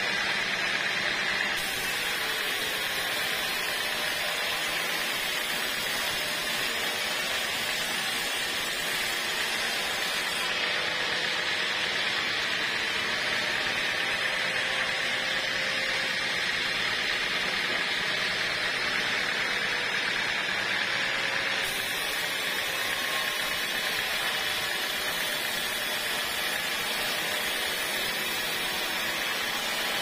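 A band sawmill's blade cutting along a dry teak log: a steady, even hissing saw noise with no breaks.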